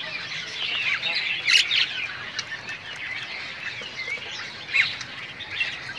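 Many caged songbirds chirping and calling at once, a dense overlapping chatter of short high chirps and quick whistled notes, with a few sharper calls standing out.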